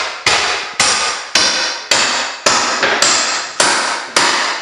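Steady hammering from renovation work: sharp, evenly spaced blows about two a second, each dying away in a short ring.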